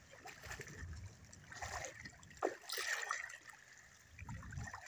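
Shallow seawater sloshing and splashing around the legs of people wading through it, with irregular splashes and one sharper splash about halfway through.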